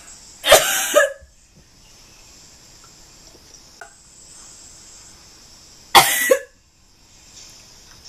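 A woman coughing harshly in two short bouts, one about half a second in and another about six seconds in, each lasting about half a second. The coughing is staged as part of a fake coughing-up-blood prank.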